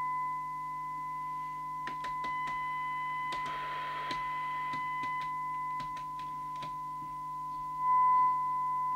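Steady 1 kHz test tone from a CB radio's loudspeaker: the signal generator's modulation, demodulated by the receiver while its detector coil is peaked for maximum output. The tone swells louder briefly about eight seconds in, with a short spell of hiss and a few faint clicks around the middle.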